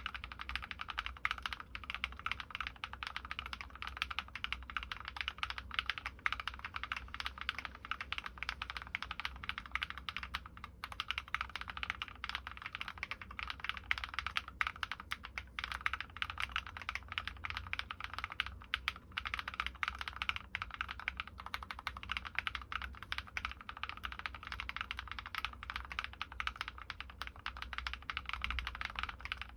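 Steady, rapid typing on a Drop+OLKB Planck V6 ortholinear mechanical keyboard. It has linear switches built from MX Black housings and Kailh Red stems, lubed with Krytox, and DROP MT3 Jukebox keycaps. The keystrokes come as a dense, continuous patter of clicks and clacks.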